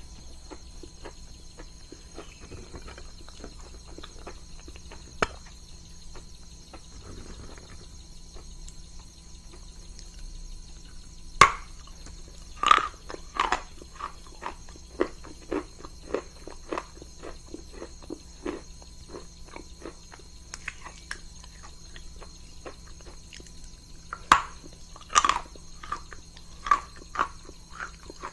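A chunk of chalk, dipped in water and cream, is bitten and chewed close to the microphone. After a quiet stretch, a sharp crunching bite comes about eleven seconds in, followed by a run of crisp, crunchy chews. Another loud bite or two come around twenty-four seconds in, with more chewing after them.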